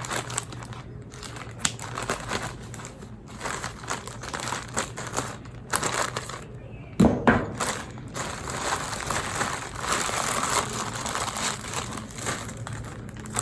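Plastic parcel packaging crinkling and rustling as it is handled, in irregular crackles, with a sharper, louder rustle about seven seconds in.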